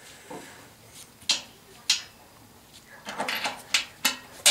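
Sharp metallic clinks and knocks of a hand tool and the motor mount against a sheet-metal blower housing as a blower motor is being fitted. There are two single knocks, then a quicker cluster of them about three seconds in.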